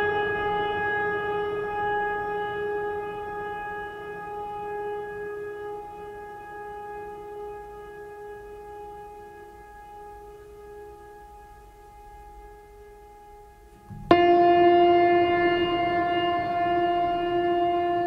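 Background music: a long held chord that slowly fades, then a louder, lower held chord comes in suddenly about fourteen seconds in.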